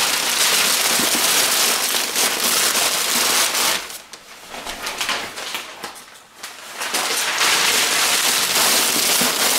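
Sheets of packing paper being crumpled and stuffed into a cardboard box, a dense crackling rustle that eases off for about three seconds midway and then starts again.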